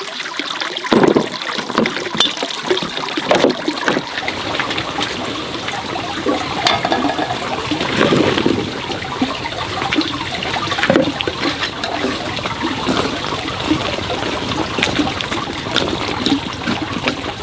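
Water running and trickling steadily, with irregular splashes and sloshes through it.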